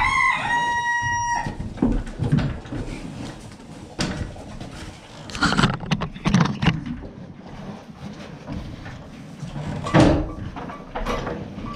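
A rooster crowing, its long held note ending a second or so in. Then scattered knocks, shuffles and rustling as someone moves about the barn on a hay-strewn floor, with the loudest knock about ten seconds in.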